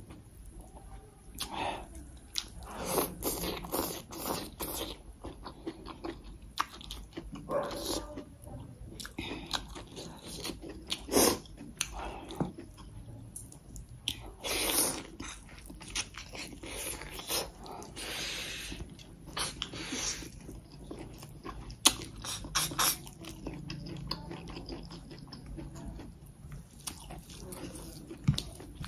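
Chewing and mouth sounds of someone eating rice and curry by hand, with irregular crunches, smacks and short clicks throughout.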